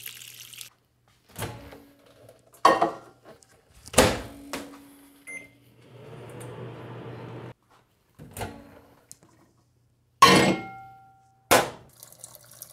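Microwave oven in use: several sharp clunks of the door and the bowl, a short beep, and the oven's steady hum for about a second and a half midway.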